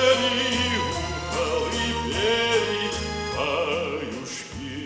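A singer holding long notes with vibrato over instrumental accompaniment with sustained bass notes, the closing phrase of a song; the sound eases off near the end.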